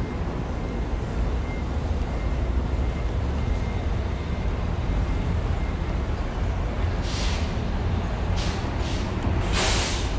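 Steady low rumble of street traffic, with several short bursts of hissing in the last few seconds, the loudest and longest just before the end.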